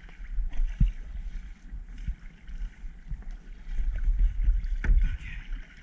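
Kayak being paddled: water splashing off the paddle strokes, with a few sharp knocks and a low rumble of wind on the microphone.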